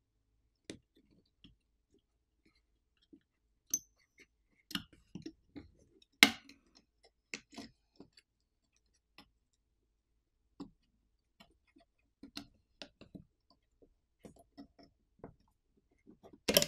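Sparse small clicks and taps of tools and parts while a smartphone's internal components are handled during disassembly, with a flex-cable connector being unlatched. The sharpest click comes about six seconds in, and a quick cluster comes near the end.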